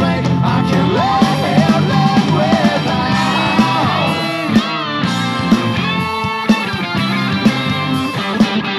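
Ska-punk rock song with a steady beat and melodic lines, played through a Sony SS-U11 bookshelf speaker driven by a McIntosh MAC 1900 receiver.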